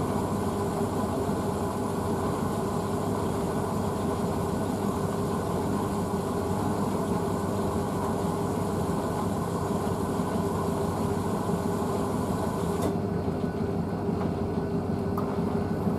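Blomberg WNF9448 front-loading washing machine tumbling a wet load on its rinse: a steady motor hum with one constant tone under the swish of water in the drum. About 13 seconds in the higher hiss drops away as the drum starts speeding up to distribute the load.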